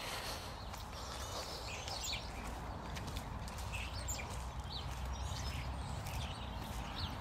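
Small birds chirping and calling here and there over a steady low outdoor rumble, with the footsteps of someone walking on a paved path.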